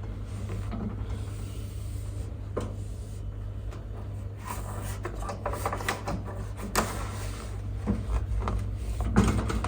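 Cloth wiping the inside of a microwave oven: rubbing with scattered light knocks and taps against the cavity walls, more of them in the second half, over a steady low hum.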